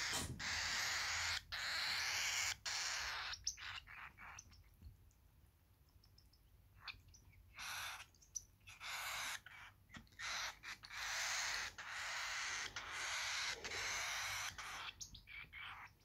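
Baby cockatiel chick's hoarse, hiss-like food-begging calls, a run of bursts each about half a second to a second long. They fall away to a few small clicks for about four seconds in the middle, then start again while it is being spoon-fed.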